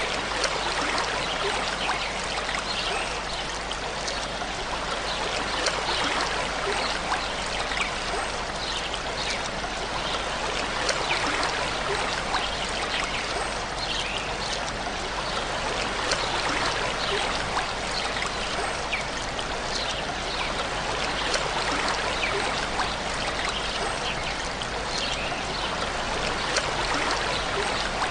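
Small waterfall splashing and rushing steadily, with brief splashes standing out here and there.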